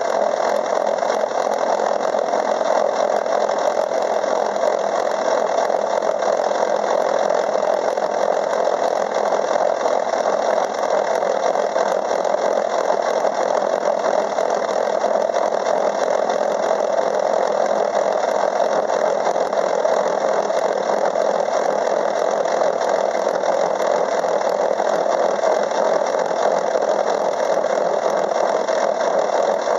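Craftsman 6-inch metal lathe running while a gear cutter takes a pass through a steel gear blank, cutting the space between two teeth. A steady machine whir with cutting noise, unchanged throughout.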